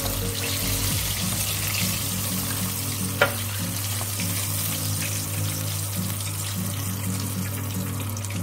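Flour-coated chicken wings deep-frying in hot corn oil: a steady sizzle, with metal tongs turning them in the pan. A single sharp metal clink about three seconds in.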